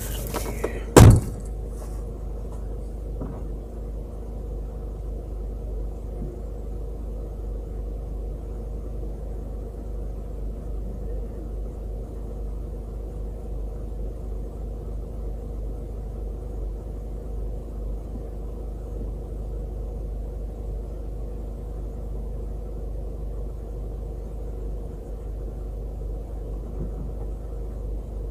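Steady low mechanical hum of an off-road vehicle running while its winch is switched on, heard from inside the cab. A single loud thump comes about a second in.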